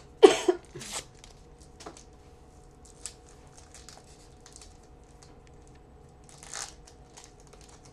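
A trading-card pack wrapper being torn open: a sharp rip just after the start and another about a second in, then light crinkling and card handling, with a shorter tear near the end.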